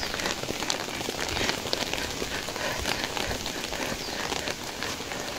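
Steady rain falling, with many small drop hits close to the microphone.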